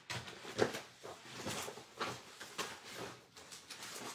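Light, irregular knocks and rustles of craft supplies being handled and sorted, about six or seven in a row.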